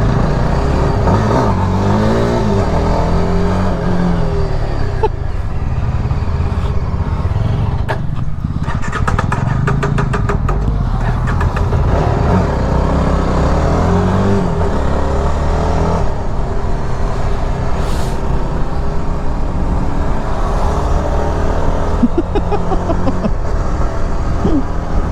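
Yezdi Adventure motorcycle's single-cylinder engine running while being ridden, revving up and dropping back several times as it is worked through the gears, with wind noise over the microphone.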